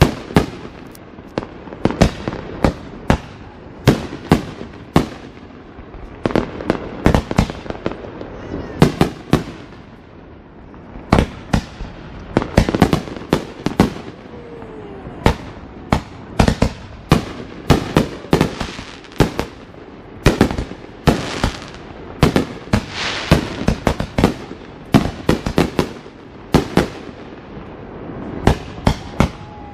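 Fireworks going off: a continuous stream of sharp bangs and crackling bursts, at times several a second, with a few faint whistling glides between them.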